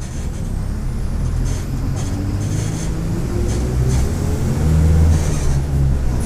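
Mercedes-Benz OF-1722M bus's diesel engine pulling as the bus gathers speed, with a whine from the differential and a faint high turbocharger whistle both rising steadily in pitch.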